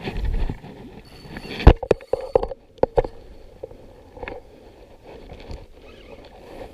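Rustling and several sharp knocks of handling noise on the microphone, with a low rumble at the start, as the angler plays a hooked pike.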